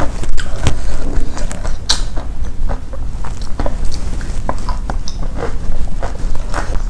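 Close-up eating sounds: irregular wet clicks and smacks of chewing a mouthful of rice and fried fish, with fingers picking at the food in its paper-lined box.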